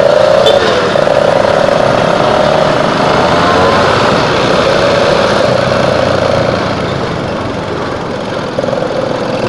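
Motorcycle engine running under way, with wind and road noise over the microphone. The engine note wavers a little in the first few seconds and eases off slightly near the end.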